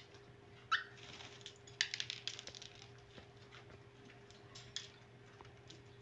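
Whiteface cockatiel giving one short falling chirp, then a quick run of clicking chatter and a few scattered soft ticks, over a faint steady hum.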